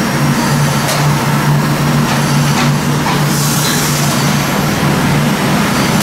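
Stationary steam engine running, its crankshaft and large spoked flywheel turning, over a steady low machinery hum that throbs slightly, with a few faint clicks.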